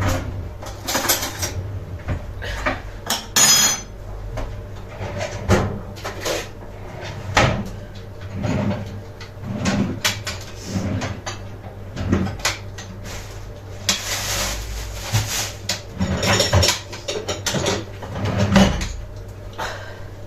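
Kitchen utensils being handled: a spoon and dishes clinking and knocking as they are picked up and set down, with one bright ringing clink a few seconds in. A brief hiss comes around fourteen seconds in.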